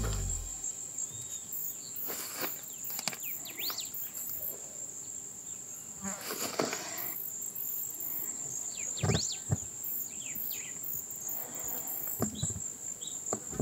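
Crickets trilling steadily at a high pitch, with a few short chirps and occasional rustles or knocks.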